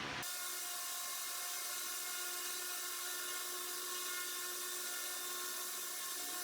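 High-speed rotary tool running steadily, a high whine over hiss, starting abruptly just after the beginning.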